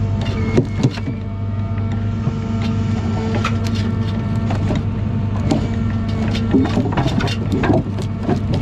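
John Deere 1010G forwarder's engine running steadily under crane work, as the grapple swings over the log load and opens. Scattered knocks and creaks of wood and metal come through, thickest about two-thirds of the way in.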